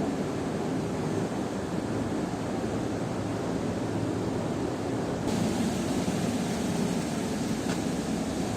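Steady rushing noise of flowing water, heaviest in the low range, brightening slightly about five seconds in.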